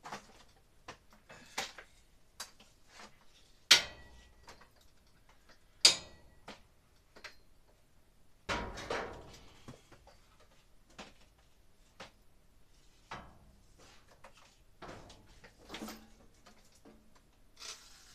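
Scattered clicks and knocks of a cordless drill and screws being handled, with two sharp clicks about four and six seconds in and a rougher sound lasting about a second at around eight and a half seconds.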